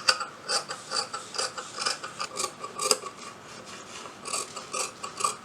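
Scissors cutting through blouse fabric: a quick run of snips, about two to three a second, with a brief pause near the end.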